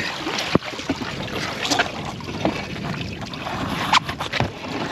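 Water splashing and running off a heavy cast-iron sewer grate as it is hauled up out of the water on a magnet line, with scattered sharp knocks and scrapes of metal, the clearest about half a second in and near four seconds.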